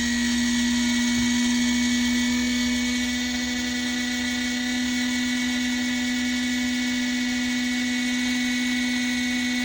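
Fan motor of a plug-in wall-outlet electric space heater running steadily: a constant hum with a fainter high whine above it.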